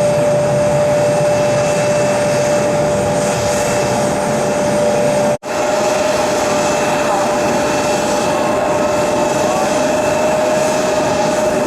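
Turbofan engines of an Embraer regional jet running with a steady high whine over a broad rushing noise. The sound drops out for a split second about halfway through.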